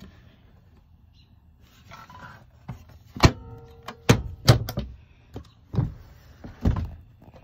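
Wooden cabinet lid and its hinges being handled: a handful of sharp knocks and clunks in the second half, the first followed by a brief ringing tone.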